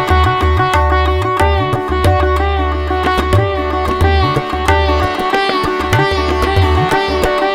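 Instrumental music in an Indian classical style: a plucked, sitar-like string melody with bending notes over a steady drone, with low drum strokes underneath.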